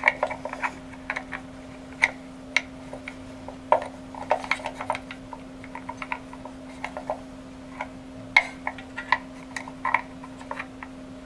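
Small irregular clicks and taps of metal parts being handled as the pawl and its small spring are fitted back onto the pulley hub of a snowmobile recoil starter in its aluminium housing. A steady low hum runs underneath.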